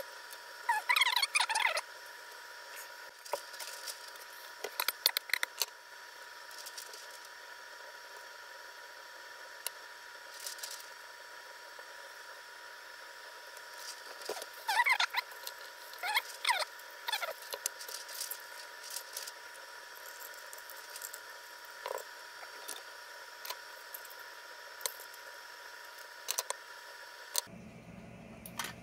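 Scattered light clicks and taps from handling an opened drone battery pack, over a steady hum. A few short chirping squeaks come in clusters near the start and again about halfway through.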